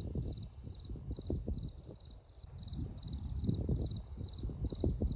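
A cricket chirping steadily, about two short trilled chirps a second, over a low, uneven rumble.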